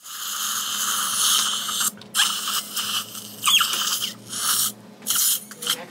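Surgical suction tip drawing up air and saline irrigation from the mouth during a dental implant procedure. It makes a rushing hiss that stops and restarts several times, with a couple of short squeals.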